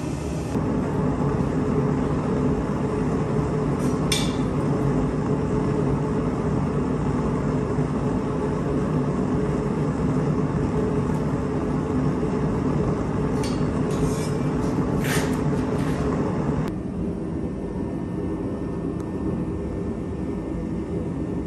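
Steady machine hum in a forge shop while a screw press stamps a maker's touch mark into a knife blade, with a few short sharp metal knocks about four seconds in and again around thirteen to fifteen seconds. The hum drops away about three-quarters of the way through.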